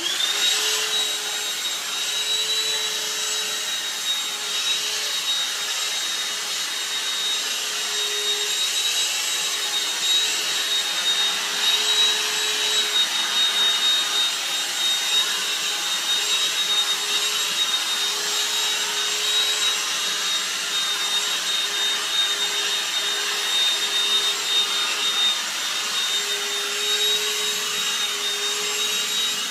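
Handheld DustBuster vacuum switched on, its whine rising briefly as the motor spins up, then running steadily with a high whine over an airy hiss.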